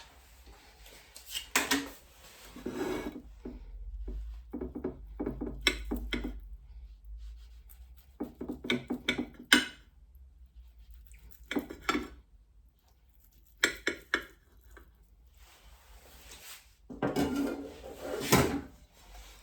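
A knife cutting through cooked chicken sausages, clinking and scraping against the dish in about seven short bouts with pauses between them.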